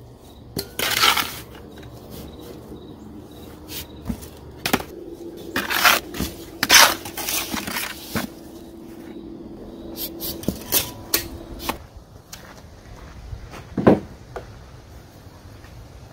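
A hand scoop cut from a motorcycle fender scraping and digging through gritty dirt and stones in a plastic bucket: a string of irregular scrapes and knocks, loudest about six to eight seconds in and once more near the end.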